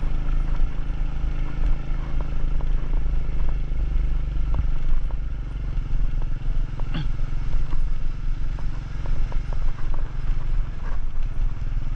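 Motorcycle engine running steadily under way, a continuous low rumble with occasional light rattles.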